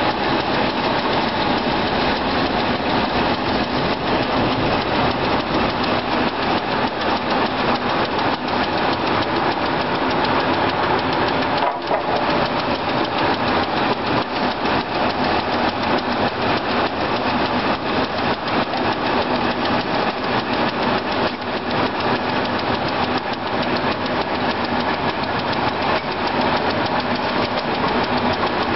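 Old circular-saw mill machinery running steadily, with a loud, dense mechanical clatter.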